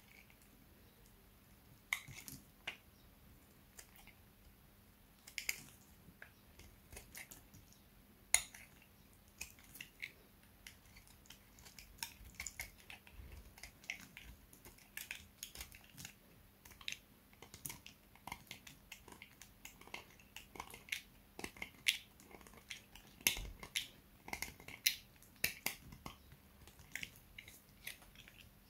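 Box cutter blade shaving and slicing a dry, hard bar of striped soap held in the hand: irregular sharp crackling snaps as the soap cracks and pieces break off, sparse at first and coming faster from about halfway.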